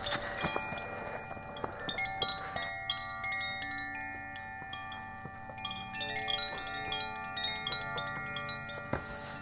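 Chimes ringing: many high, clear notes struck one after another, each left to ring on so that they overlap.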